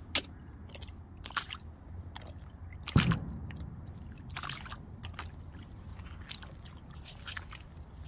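Aigle rubber wellington boots wading through shallow water over grass: irregular splashing, sloshing steps, the loudest about three seconds in.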